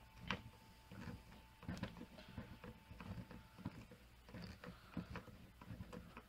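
Faint, irregular clicks and light taps of a hand tool and small metal parts as a screw is driven to fasten an aluminium shock to the rear shock tower of a Traxxas Stampede RC truck.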